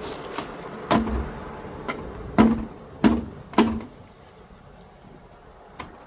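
A series of about seven sharp knocks, irregularly spaced, the three loudest coming between about two and a half and four seconds in, typical of hard kitchen work such as chopping or setting down utensils.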